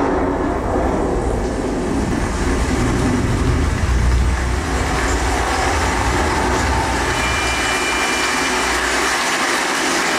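A film soundtrack played through a 5.1 home-theatre amplifier and speakers with subwoofer: dense rumbling effects with heavy bass, which falls away near the end.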